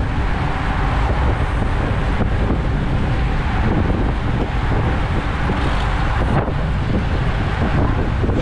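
Steady wind noise rushing over the microphone of a camera on a racing bicycle moving at about 30 km/h in a peloton, mixed with the rumble of tyres on the road.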